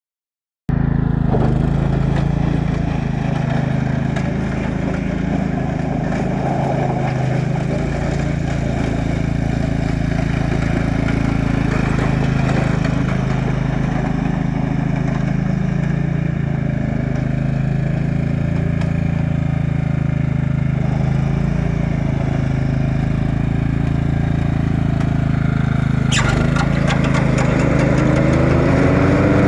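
Craftsman lawn mower's small engine running steadily, then revving up near the end.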